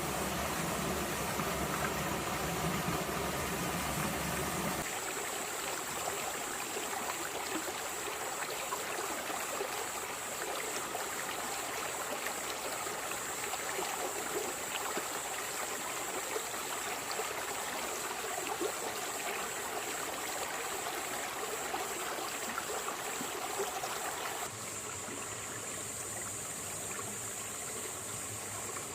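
A small stream of water running and babbling over stones and rocks in a steady rush. A low rumble sits underneath for the first five seconds. The sound shifts abruptly about five seconds in and again near the end, as between separate recordings.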